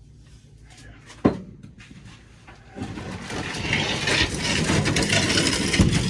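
One sharp knock, then from about three seconds in a continuous rough, rattling scrape as something is manoeuvred into place.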